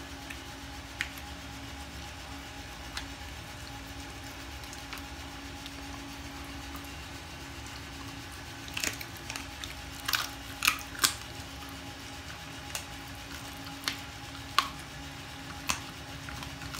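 Belgian Malinois crunching and chewing raw chicken feet: sharp cracks of bone and wet bites, clustered from about nine seconds in, over a steady electric-fan hum.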